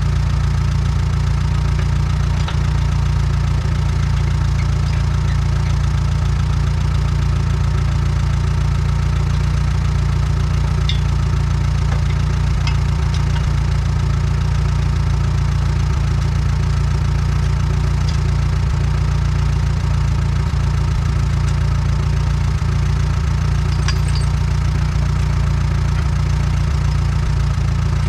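Allis-Chalmers WD tractor's four-cylinder engine idling steadily, with a few faint clicks now and then.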